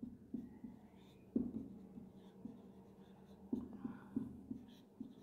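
Felt-tip marker writing on a whiteboard: a string of short strokes and taps with brief pauses, the busiest stretch coming a little past the middle.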